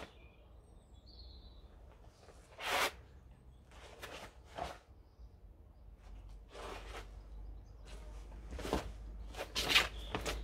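Karate gi sleeves and trousers swishing and snapping with the strikes, blocks and steps of the kata Pinan Godan. There are several short swishes at uneven gaps, coming closer together near the end.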